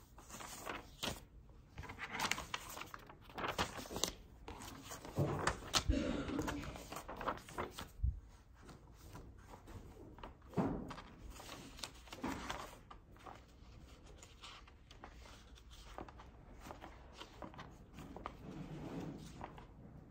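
Book pages being turned and loose paper sheets handled on a desk: irregular rustling and crinkling, with a few soft thuds as paper and book meet the tabletop.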